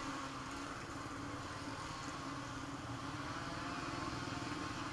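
Motor vehicle engine running steadily, a constant hum with a fine, even pulse.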